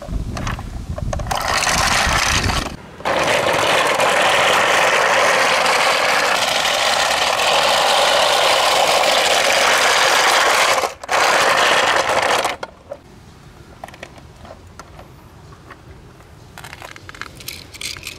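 Toy vehicles' plastic wheels rolling over rough asphalt: a loud, continuous scraping rattle for about ten seconds, broken off briefly twice, then only faint clicks and taps as the toys are handled.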